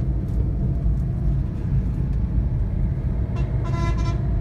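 Steady low engine and road rumble heard from inside a vehicle moving at speed while overtaking. A horn sounds briefly near the end.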